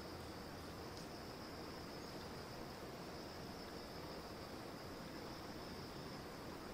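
Insects chirring in a steady high-pitched drone over faint hiss, with a tiny click about a second in.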